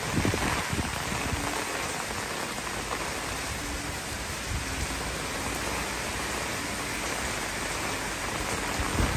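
Heavy typhoon rain pouring steadily, with a brief low rumble in the first second and again near the end.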